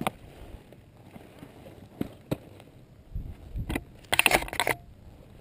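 Handling noise from a gloved hand at a GoPro mounted on a motorcycle fairing: scattered clicks and knocks, then a louder scraping rustle a little past four seconds in.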